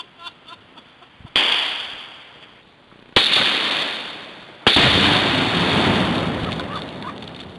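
Three sharp, loud reports from a rifle or a Tannerite charge, about a second and a half to two seconds apart, each trailing off in a long echo. The third has the heaviest and longest rumble.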